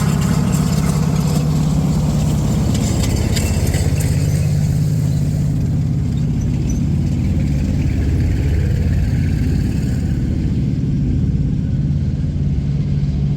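Stuart light tank running with a steady low engine drone, with clicking and clatter over the first few seconds.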